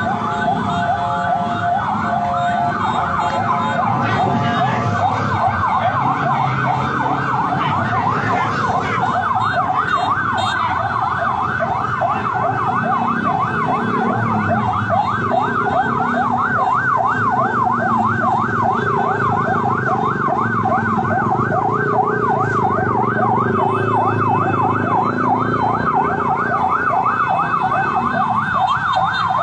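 Police siren on a rapid yelp, a fast rising-and-falling wail that keeps going without a break, over a low background rumble.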